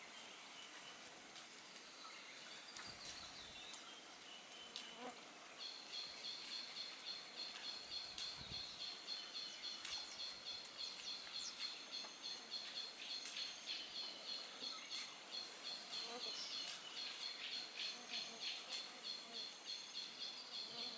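Forest ambience with a high, pulsed insect chirping that starts about six seconds in and repeats a few times a second, and scattered short bird calls.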